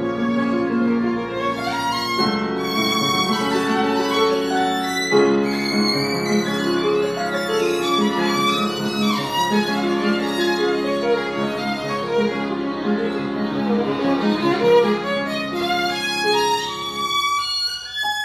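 Violin bowed with grand piano accompaniment, a duo playing a continuous melodic passage. About nine seconds in there is a quick downward run of notes, and near the end the lower accompaniment thins out.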